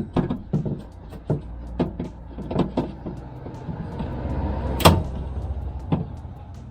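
Plastic door trim moulding and panel clips being handled and pressed against a car door: a string of short clicks and knocks, with a rubbing, handling rumble in the middle and one louder sharp click about five seconds in.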